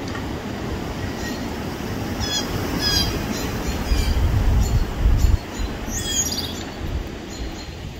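Outdoor ambience picked up by a phone's microphone: a steady low rumble that swells about four to five seconds in. Short high bird chirps come a few times around two to three seconds in and again around six seconds.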